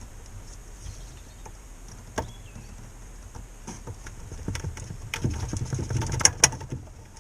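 Scattered clicks, taps and knocks of hands handling parts and tools, with a low rumble underneath; the handling gets busier about five seconds in, with two sharp clacks near the end.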